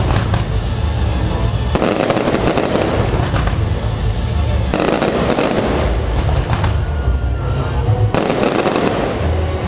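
Fireworks display going off: continuous booms with dense crackling that flares up in fresh waves about two, five and eight seconds in.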